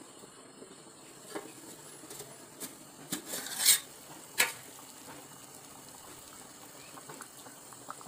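Metal cookware and utensils clinking and scraping: a few light knocks, a louder clatter and scrape about three and a half seconds in, then a sharp clink just after. A faint steady hiss runs underneath.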